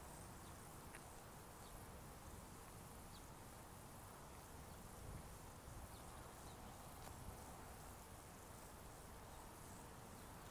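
Near silence: faint outdoor ambience with insects chirping in the grass.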